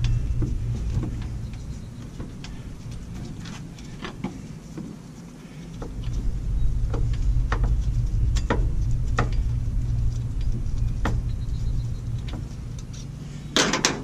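A hand wrench backing the last bolts out of a turbo wastegate cap: scattered sharp metal clicks and a louder clatter near the end, over a steady low rumble.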